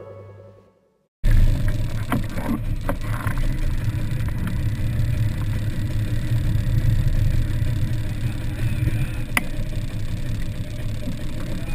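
Music fades out in the first second; after a brief silence, a 1990 Vespa 200 scooter's two-stroke single-cylinder engine runs steadily at low speed, with a few sharp clicks along the way.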